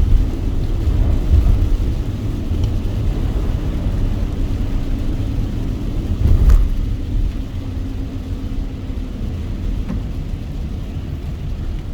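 Car driving on a wet road: a steady low rumble of road and tyre noise with a faint steady hum. There is a single thump about six and a half seconds in.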